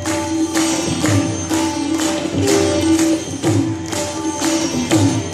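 Sitar playing a melody over a steady rhythm of tabla strokes.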